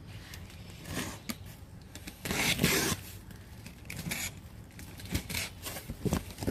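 Packaging being torn and handled as a cardboard box is opened: rough tearing and scraping sounds, loudest in a burst of under a second a little over two seconds in, then scattered short scrapes and knocks.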